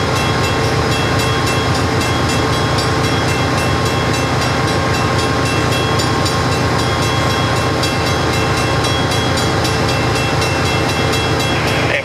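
Amtrak GE P42DC Genesis diesel locomotive standing with its engine running: a loud, steady drone with several fixed tones over it.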